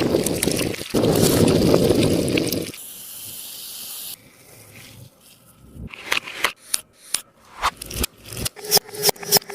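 Sticky taba squishy being pressed and squeezed close to the microphone: a dense crinkly rush for the first few seconds, then a quieter stretch, then a quick run of sharp, tacky crackles and clicks over the last few seconds as the sticky surface pulls apart.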